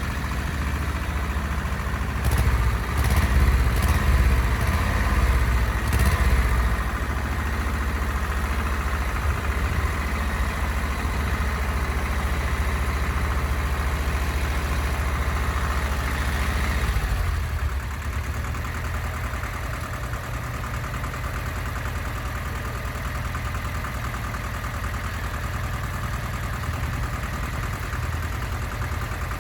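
An engine running at idle with a steady low hum. It gets louder for a few seconds near the start, with some knocking, and drops to a quieter idle about two-thirds of the way through.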